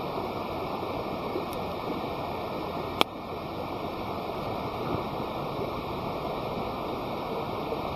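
Wood campfire burning with a steady rushing crackle, and one sharp pop of the burning wood about three seconds in.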